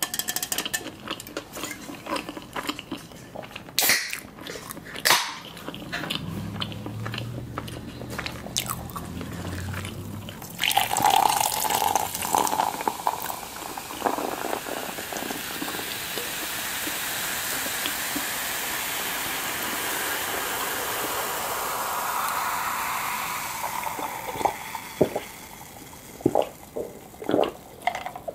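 Close-miked eating sounds, with chewing, bites and sharp clicks of utensils or packaging. In the middle a steady rushing noise, like running water, carries on for about thirteen seconds and then fades out, and the clicks resume near the end.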